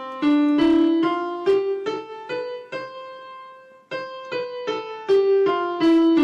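Keyboard playing the seven notes of a scale, one at a time, rising step by step from the lowest to the highest, which is held. It then starts back down the scale note by note.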